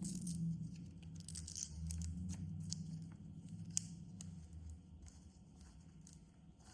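Rustling and crinkling of packaging with scattered small clicks as a USB-C cable and battery are handled, over a low rumble that fades out about halfway.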